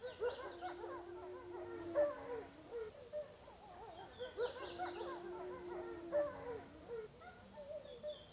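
Wolves howling in chorus: many overlapping wavering howls and yips, with one long low howl held level, over a steady high trill of crickets. The same four seconds or so of chorus play twice over.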